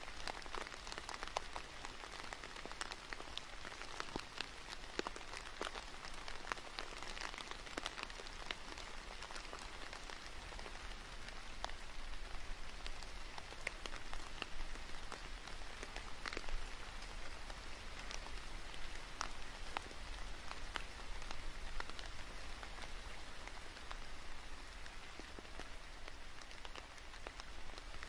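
Steady rain falling on tree foliage, with many scattered individual drops ticking over a continuous hiss.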